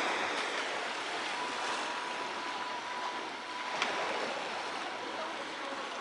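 Gentle surf on a pebble beach: small waves from an almost calm sea washing softly onto the shore, a steady hiss that swells and eases slightly.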